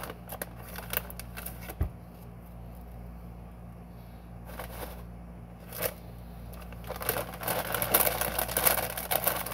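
Crunching of a ridged potato chip being bitten and chewed, heard as a few scattered crisp clicks and then a dense crackle over the last two or three seconds. A steady low hum runs underneath.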